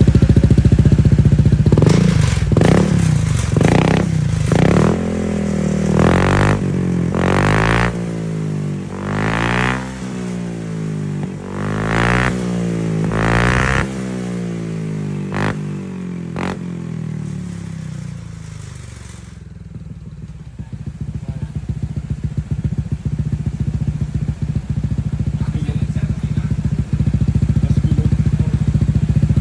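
Honda ADV 160 scooter's single-cylinder engine through an aftermarket Vamos full exhaust: idling, then revved in several quick throttle blips, each rising and falling in pitch. It quietens a little past the middle, then settles back into a steady, loud idle.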